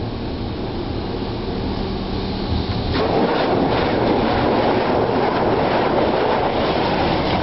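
High-pressure water jets of an automatic car wash blasting against the truck's body and windows, heard from inside the cab. A steady low hum for about three seconds, then the spray hits suddenly and runs on as a loud, dense rush.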